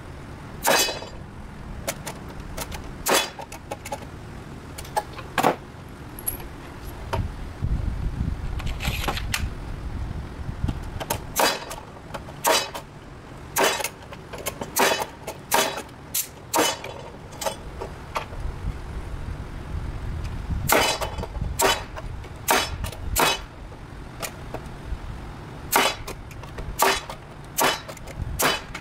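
Irregular sharp metal knocks and clinks, about one a second and some in quick pairs, as metal plates and nails on a wooden board are worked with a hand tool. A low rumble runs underneath.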